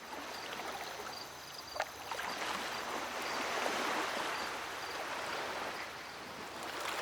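Gentle lapping of harbour water, a steady soft wash with faint high chirps here and there above it.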